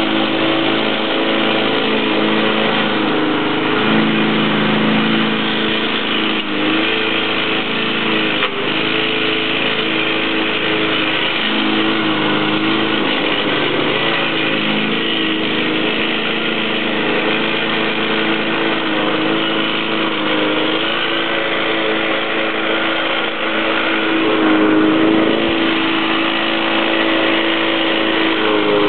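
Small single-cylinder gas engine of a 20-inch Yard Machines rotary lawn mower running steadily, its pitch dipping briefly now and then.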